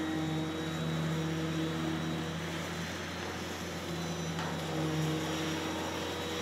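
Concrete pour machinery running: a steady low engine drone from the concrete pump, with a higher hum that drops out for about two seconds in the middle and comes back, as a concrete vibrator is worked through the fresh concrete in the beam forms.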